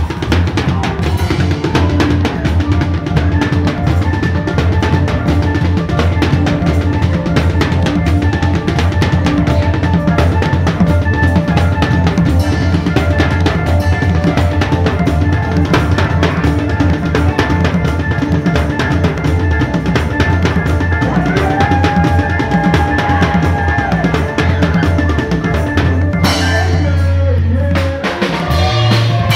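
Live church praise band music led by a drum kit: kick, snare and cymbals played in a fast, busy rhythm over a heavy, steady bass line. The high end thins out briefly near the end before the full band comes back in.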